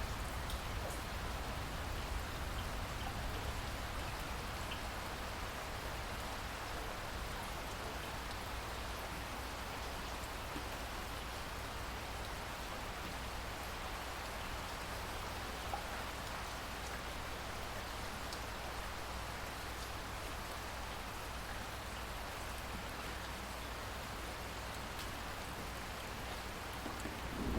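Heavy rain falling steadily in an even hiss, with a low thunder rumble starting to build near the end.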